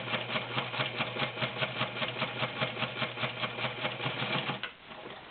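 Vintage White model 614 all-steel sewing machine running under its 1.3-amp motor, stitching through three layers of garment leather with a size 18 needle: a steady motor hum under a rapid, even clicking of the needle and feed. It stops about four and a half seconds in.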